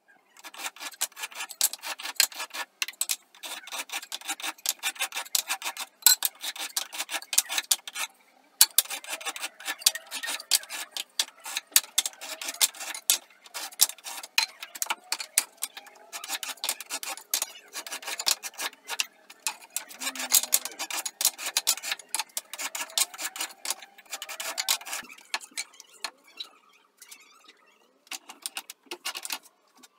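Small hardwood pieces being rubbed by hand against an abrasive surface, a fast run of scratchy back-and-forth strokes that keeps up almost the whole time and thins out near the end.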